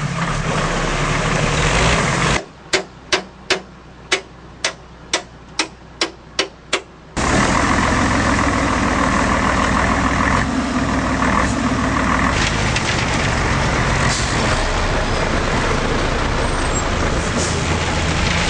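Heavy dump truck diesel engines running. About two seconds in the engine sound drops away for some five seconds, and a regular series of about ten sharp clicks comes, roughly two a second. Then a loaded dump truck's engine runs loudly and steadily as it tips its bed.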